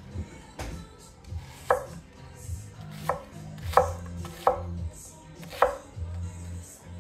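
A gyuto chef's knife of Apex Ultra steel chopping red onion on a wooden cutting board. The blade knocks against the board at an uneven pace, with about five sharp, loud chops among softer ones.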